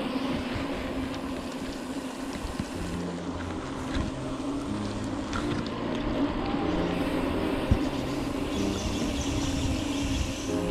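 Wind and road noise from a bicycle coasting fast downhill, with one sharp knock about three-quarters of the way through.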